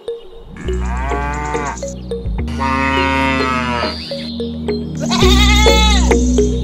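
A sheep bleats three times, each call about a second long and falling away at its end, over background music with a steady beat and bass.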